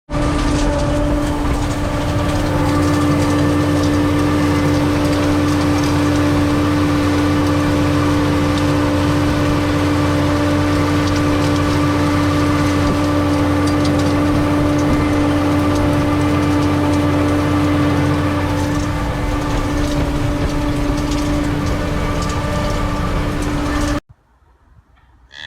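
A machine's engine or motor running steadily at a constant speed, with a strong, steady hum. It cuts off suddenly near the end.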